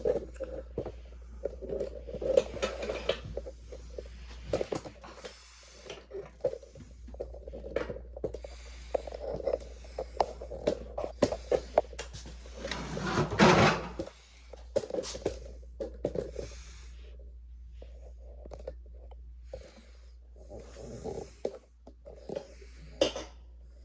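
Handling noise: scattered clicks, knocks and rubbing, with one louder, longer rustle about 13 seconds in, over a steady low hum.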